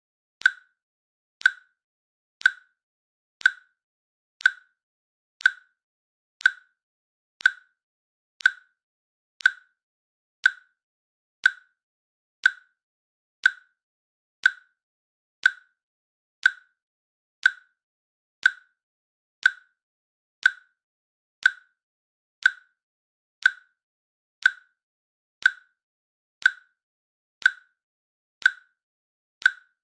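Countdown timer's click sound, one short sharp click every second, evenly spaced with silence between.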